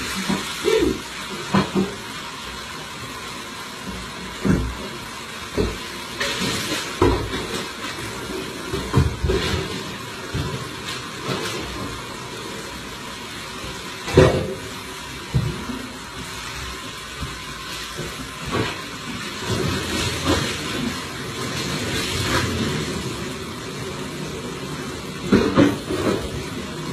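Water splashing and sloshing in repeated irregular bursts over a steady rushing of water, as a kitchen is doused to clean it.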